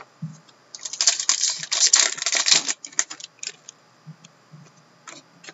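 Trading cards and a card pack being handled: a dense run of crinkling and quick card clicks lasting about two seconds, then scattered light taps as the cards are sorted.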